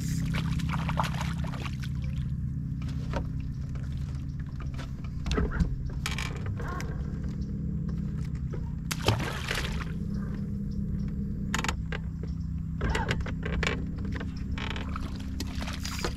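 A boat's motor running with a steady low hum, with water sloshing and scattered knocks and clatter on top.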